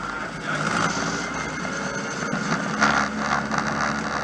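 Rally car's engine running while the car is driven, with tyre and road noise, heard from inside the stripped, roll-caged cabin. A brief louder, rougher patch of noise comes about three seconds in.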